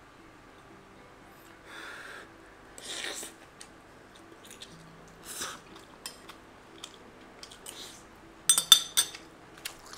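Metal spoon scraping through cheese-topped fried rice on a ceramic plate, with a few soft scrapes and, near the end, a quick run of sharp clinks of spoon against plate.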